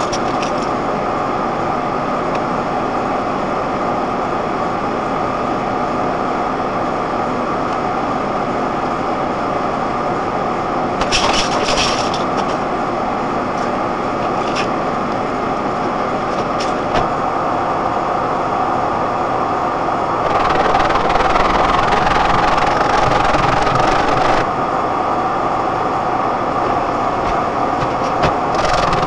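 Steady road and engine noise of a car driving on a winter road, heard from inside the car. There is a short crackle about eleven seconds in and a louder rush of noise for about four seconds near the end.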